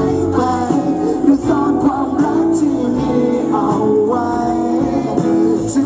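A male singer singing a Thai pop song live over amplified accompaniment with guitar.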